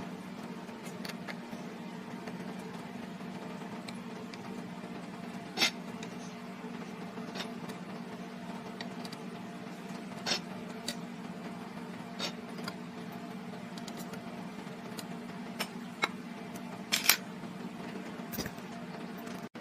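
Steady low hum with a handful of short, sharp clicks and taps scattered through it, the loudest pair near the end: the hard plastic parts of a 3D-printed scraper being handled and fitted together.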